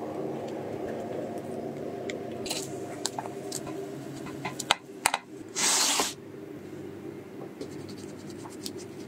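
Cooking sounds at an electric nonstick griddle: a metal spatula tapping and clicking against the pan, with one loud scrape about halfway through, then a knife cutting through a pancake on a wooden board near the end, with quick faint ticks. A steady low background noise runs underneath.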